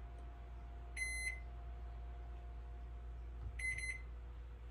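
Microwave oven keypad beeping as its buttons are pressed: one short high beep about a second in, then two quick beeps near the end, over a faint steady hum.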